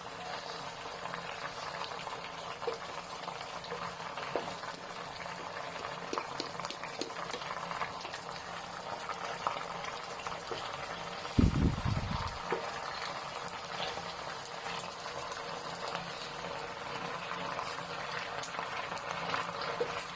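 Chicken pieces deep-frying in hot oil, a steady bubbling sizzle with small crackles and pops. A low thump about halfway through.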